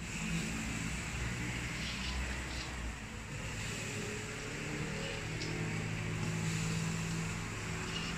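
Steady low mechanical hum with a hiss over it, and a few faint clicks as wet hickory chips are dropped by hand into the smoker's chip tray.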